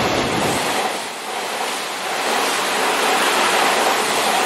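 Hanshin 'akadō' red express train passing close by a platform at speed: a steady, loud rush of wheel and air noise.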